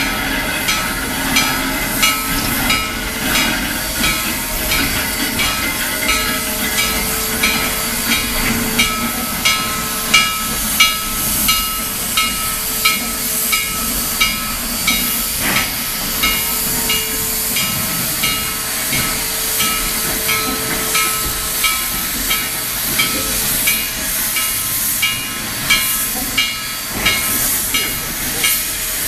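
Steam locomotive working steadily, its exhaust chuffing about three times every two seconds over a constant hiss of steam, the beat quickening a little near the end.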